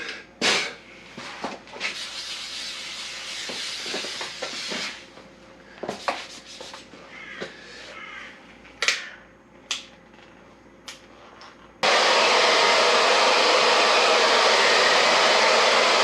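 Small handling clicks and rustles, then about twelve seconds in a heat gun switches on abruptly and runs with a steady blowing hiss, heating a vinyl graphic to soften it.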